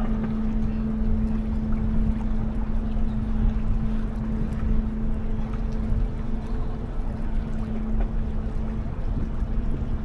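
Steady low drone of a large Great Lakes freighter's engines, a constant hum over a deep rumble.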